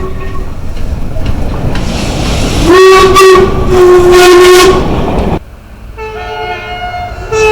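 A train's two-tone horn over the rumble of a moving train: a loud high note, then a slightly lower one, each held for about a second. It cuts off suddenly, and a fainter horn from another train starts up and grows louder near the end.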